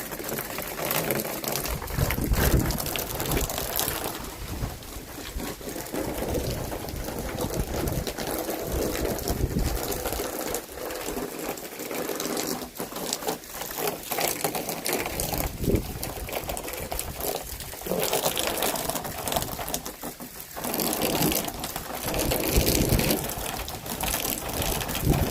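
Heavy rain falling in a storm, a steady rushing hiss, with the low rumble swelling and easing in uneven gusts.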